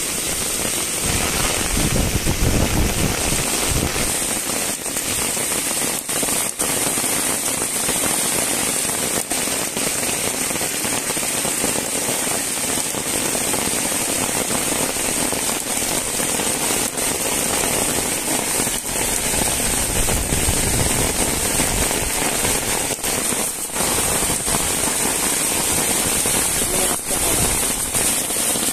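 Heavy rain falling steadily, a dense hiss with scattered sharp drop ticks. Wind buffets the microphone in low rumbles about two seconds in and again about twenty seconds in.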